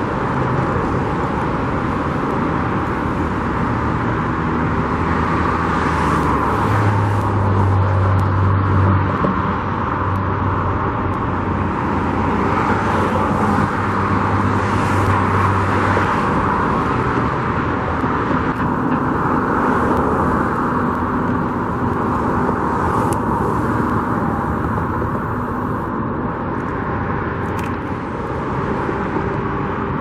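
Steady road traffic noise: vehicles passing in a continuous wash that swells and eases every few seconds, with a low engine hum from about 7 to 16 seconds in.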